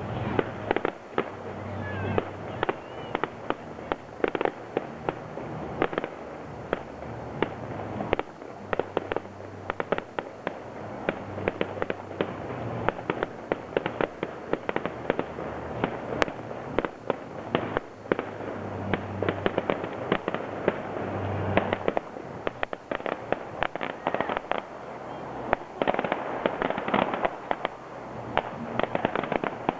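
Aerial fireworks going off: a dense, continuous run of sharp pops and cracks from bursting shells.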